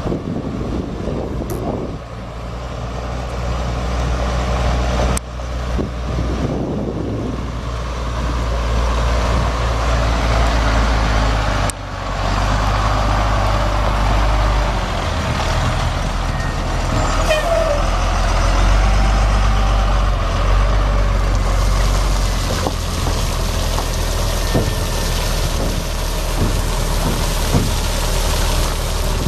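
The 1998 Ford F800 dump truck's Cummins 5.9 L turbo diesel engine running steadily. Its low note shifts several times, with two brief breaks in the sound.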